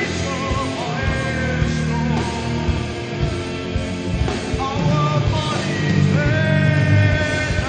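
Live metal band playing: a man's sung vocal, held in long gliding notes, over electric guitars and drums.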